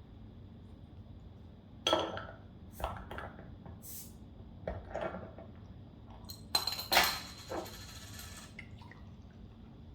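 Glass soda bottle being handled, with a few knocks and clinks, then its cap opened about seven seconds in with a short hiss of escaping gas from the carbonated soda.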